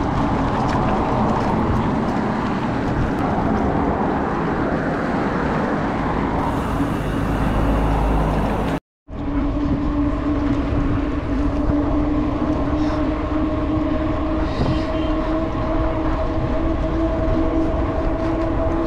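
Wind rushing over the microphone of a camera on a moving bicycle, with road noise. The sound cuts out for a moment about nine seconds in; after that a steady hum runs beneath the rush.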